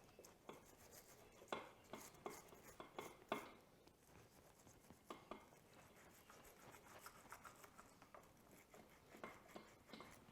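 Faint scrubbing and clicking of a small brush working over a dirt bike's rear brake caliper, with irregular light taps of small parts and a few sharper knocks in the first few seconds.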